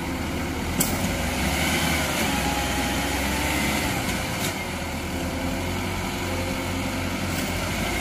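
Tracked rice combine harvester's engine running steadily as the machine strains bogged down in deep mud, unable to pull itself out. A sharp click about a second in, and two fainter ones later.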